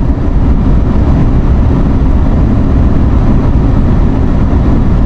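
Pickup truck driving, a steady loud low rumble of engine and road noise.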